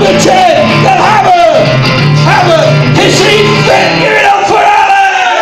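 A man singing along to his own acoustic guitar strumming, played live through a microphone. The guitar's low chords stop about two thirds of the way in while the singing goes on.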